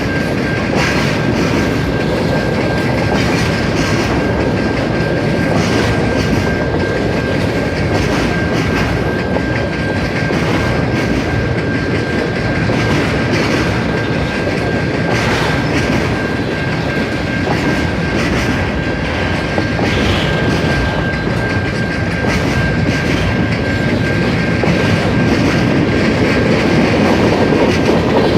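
CN freight train rolling past, its railcar wheels clattering over the rail joints with a steady rumble. A thin, steady high whine sits over it and fades out near the end.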